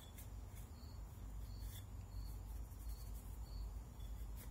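Faint rubbing and rustling of a cloth patch wiping carbon off the action of a Franchi Falconet double-barrel shotgun, with a few light clicks.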